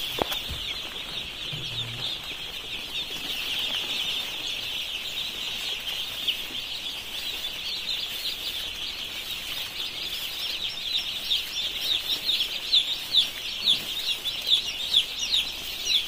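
A shed full of two-day-old chicks peeping continuously: a dense chorus of many shrill, short, falling cheeps overlapping, with single cheeps standing out more near the end.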